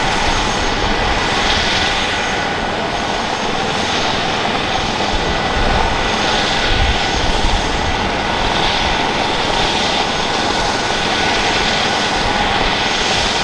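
Airbus H145 helicopter running on the ground with its main rotor turning: a steady turbine whine with several constant high tones over the rotor's rumble, as the engines are warmed up before take-off.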